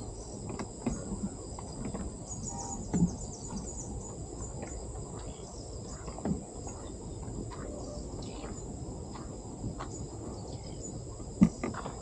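Insects trilling steadily at a high pitch, over a low rumble. A few short thumps stand out, the loudest about three seconds in and near the end.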